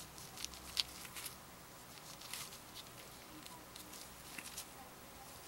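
Faint scattered rustles and light clicks of gloved hands handling and turning a bar of soap, with one sharper click just under a second in.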